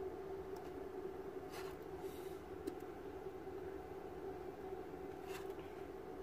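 Light scrapes and clicks of laptop motherboards being handled and turned over on a workbench: a few short ones about two seconds in and another near the end, over a steady hum.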